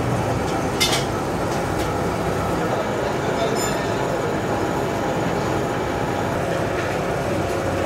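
Gear hobbing machine running steadily, its hob cutting the teeth of a green plastic helical gear blank: a dense, even mechanical running noise with a sharp click about a second in.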